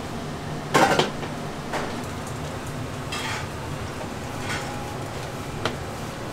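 Kitchen clatter of dishes and utensils: a loud clatter about a second in, then a few lighter clinks and knocks, over a steady low hum.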